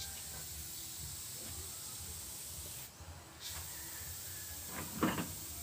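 Airbrush spraying paint: a steady hiss of air that stops for about half a second around three seconds in, then starts again. A brief louder sound about five seconds in.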